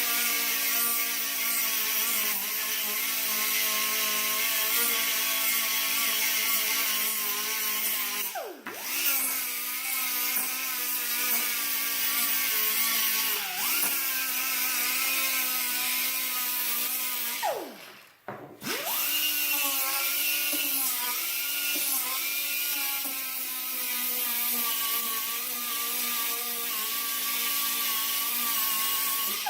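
Right-angle die grinder with a 120-grit sanding disc running under load, sanding scratches out of a metal tool handle: a steady high motor whine over a gritty hiss. The pitch sags and recovers a few times. About two-thirds of the way through it briefly winds down and spins back up, and it winds down right at the end.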